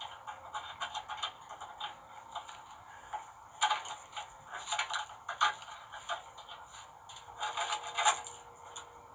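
Irregular metal clicks, clinks and scrapes of hand tools and fittings being worked on a steel winch cable, with louder clusters around the middle and near the end.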